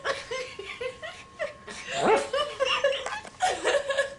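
People laughing in short, broken bursts, with a word or two of talk mixed in.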